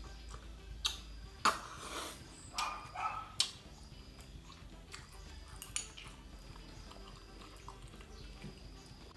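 The neighbour's dog barking several times, a cluster of short loud barks about one to three and a half seconds in.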